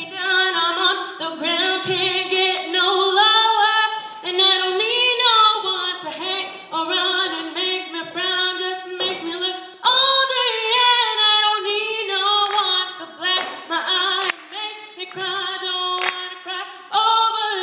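A woman singing unaccompanied, in phrases with sliding, bending pitch.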